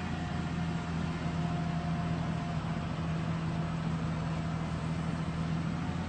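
Heavy farm machinery's diesel engine running at a steady speed, a constant low drone.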